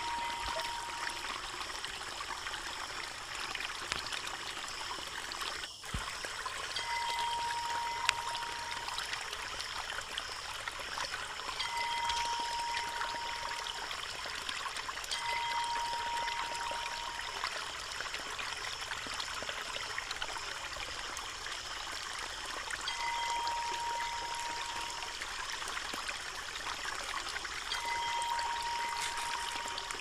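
Water pouring steadily from a bamboo spout and splashing onto wet rocks, a continuous trickling splash. Now and then a steady high note sounds over it for a second or two, about six times.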